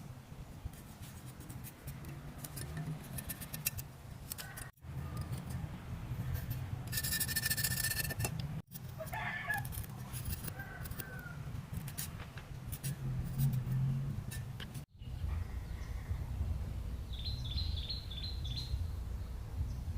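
Steady low hum with a few short bird calls over it. The sound cuts out sharply three times.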